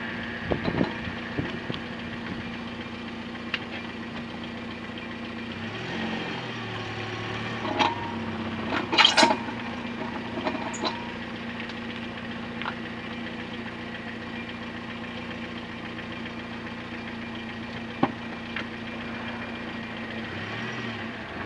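Car running with a steady engine drone, broken by irregular knocks from a wheel, a cluster in the first two seconds and the loudest ones about nine seconds in. The knocking is the brake drum catching on its dust shield because of play in a worn wheel hub.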